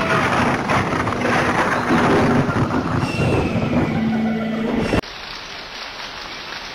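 Storm sound effects: a loud, dense rush of wind and heavy sea with faint held tones in it, cutting off abruptly about five seconds in to a much quieter background.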